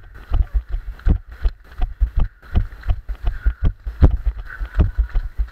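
A runner's footfalls on a wet, muddy trail: heavy, regular thuds about three a second.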